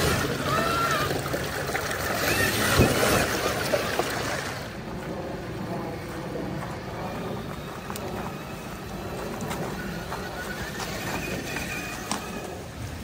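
Creek water rushing and splashing around a 1/6-scale Axial SCX6 Honcho crawler as it wades. After about four and a half seconds this gives way to the quieter running of the truck's electric motor and drivetrain as it drives along a dirt trail.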